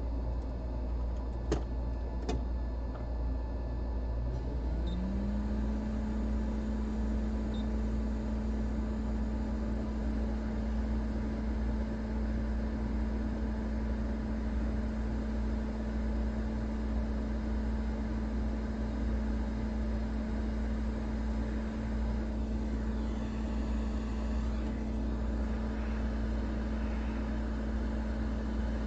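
Hot air rework station's blower spinning up about four seconds in, its pitch rising and then holding steady, over a constant low hum. Two sharp clicks come just before it starts.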